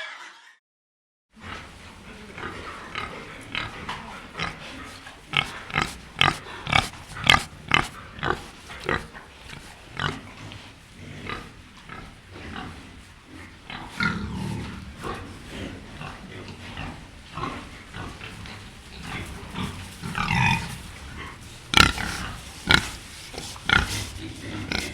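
Domestic pig grunting: many short sharp sounds in quick succession, with several louder, pitched grunts in the second half. The sound begins after about a second of silence.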